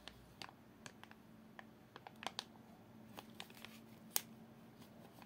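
Faint scattered clicks and light plastic rustles as a SilverCrest battery-powered handheld mini bag sealer is squeezed shut on a thin plastic bag to heat-seal it. One sharper click comes a little past four seconds in.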